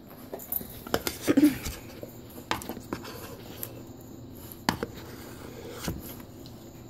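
Butter knife scraping and knocking inside a jar of peanut butter: a few scattered sharp clicks and scrapes, loudest about a second and a half in.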